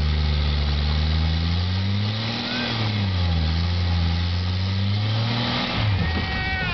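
Rock buggy's engine revving under load as it crawls over a boulder, its pitch rising about two seconds in, dipping, rising again, then falling away near the end.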